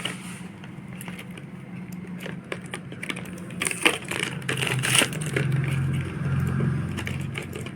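Packaging being handled by hand during an unboxing: crinkling and rustling with scattered clicks and knocks, busiest about four to five seconds in, over a steady low hum.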